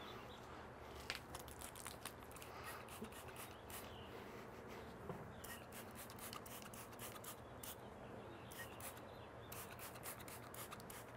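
Faint, many short spritzes from a trigger spray bottle of cleaner onto the glazed tiles of a kamado grill's dome, with a microfiber cloth rubbing over the tiles.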